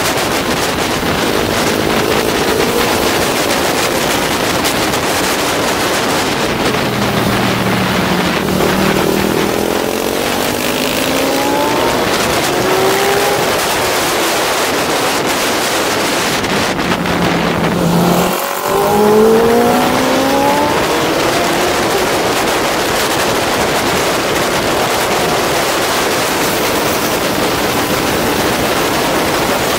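Honda CBR600RR inline-four engine at racing speed, half buried under loud wind rushing over the microphone. The revs climb through the gears, drop away under braking a little past halfway with a brief dip, then climb again.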